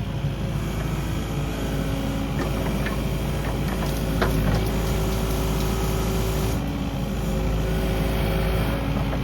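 Kubota KX080 mini-excavator's diesel engine running steadily as it works brush, with a few short sharp knocks and cracks partway through. The engine note shifts slightly about six and a half seconds in.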